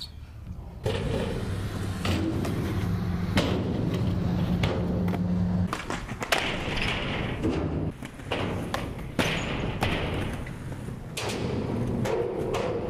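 Skateboard wheels rolling on concrete, starting about a second in, with several sharp clacks and thuds of tricks: tail pops and board landings.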